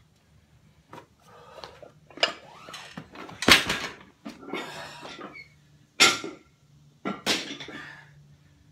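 A heavy plate-loaded dumbbell being set down after a set of preacher curls: one loud thud about three and a half seconds in, then two more hard knocks about six and seven seconds in.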